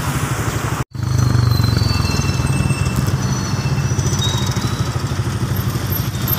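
Several motorcycle engines running together with a steady, fast-pulsing low throb. The sound drops out for an instant about a second in, then returns a little louder.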